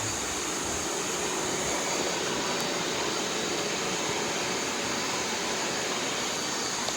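Robot vacuum running: a steady motor and suction whir with a faint high whine.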